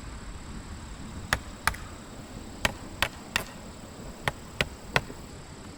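Eight sharp knocks, hard impacts in loose groups with pauses between them, loudest near the end.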